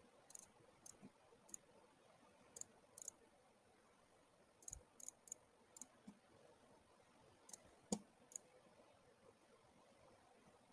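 Computer mouse clicking: about a dozen short, sharp clicks, some in quick pairs, scattered over near silence, the loudest about eight seconds in.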